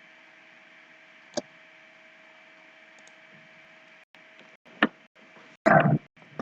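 A few sharp computer-mouse clicks over a faint steady hum, with a short, louder noise just before the last click.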